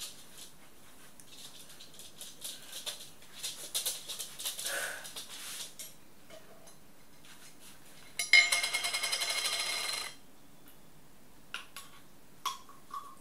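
Quiet handling of a jar of mustard and a spoon: scattered rustles and small clicks, then a rapid grating rattle lasting about two seconds, and a few light clinks near the end.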